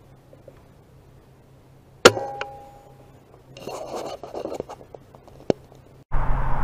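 Brocock BRK Ghost PCP air rifle firing a single shot about two seconds in, a sharp crack with a brief ringing after it. About a second later the cocking action is worked for the follow-up pellet: a rattling, rasping run of metal clicks, then one more click. Near the end a steady louder hum starts abruptly.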